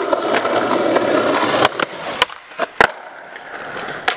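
Skateboard wheels rolling on concrete and brick paving, with three sharp clacks of the board near the middle, the loudest nearly three seconds in, and quieter rolling after.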